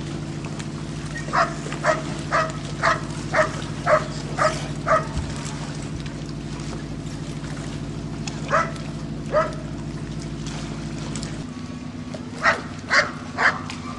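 A dog barking in runs: eight quick barks about two a second, two more after a pause, then three more near the end. A steady low engine hum runs underneath.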